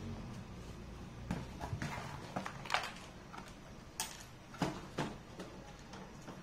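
Cardboard packaging being handled and set down on a wooden desk: a string of light, irregular knocks and scuffs over a few seconds.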